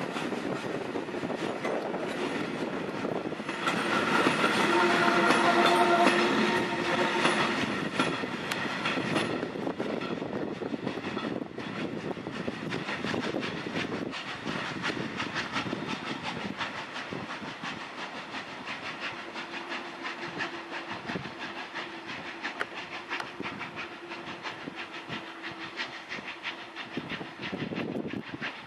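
Ol49 steam locomotive hauling a train of old passenger coaches: wheels clattering over the rail joints, with a sustained steam whistle from about 4 to 9 seconds in that is the loudest part. The sound then fades as the train draws away, with a fainter steady tone returning about two thirds of the way through.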